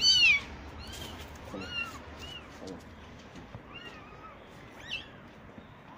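Several very young kittens mewing over and over in high, arching cries. The loudest comes right at the start and the rest are fainter.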